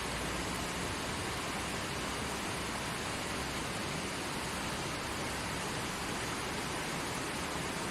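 River water rushing and splashing over rocks in its bed: a steady, even rush with no breaks.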